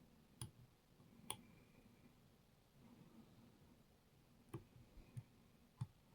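Faint, sparse metallic clicks of a lock pick working the pins inside a Rav Bariach KeylocX cylinder during single-pin picking: two clicks in the first second and a half, then three more near the end.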